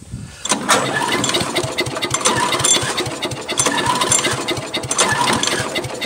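Briggs & Stratton Intek 6.5 HP engine on a Troy-Bilt wood chipper being pull-started several times, cranking over in a fast run of even compression strokes without catching. The engine turns freely now that the jammed chipper blade has been freed, but it does not start.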